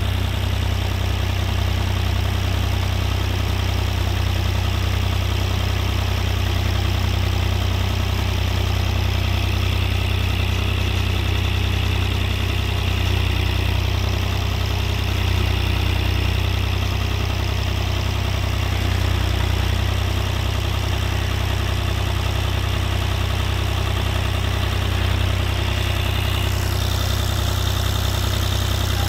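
The engine of a Wallenstein GX900 backhoe runs steadily at a constant speed with a low, even hum, powering the backhoe's hydraulics while it is worked. The higher part of the sound changes slightly near the end.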